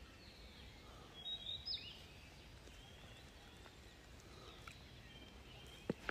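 Faint outdoor ambience with a few short bird chirps about a second in, and a single soft knock near the end.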